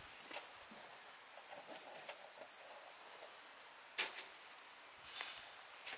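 Quiet outdoor background with a few faint short chirps, then a sharp clack about four seconds in as a folding camp table is set up on the gravel. A brief scrape follows about a second later.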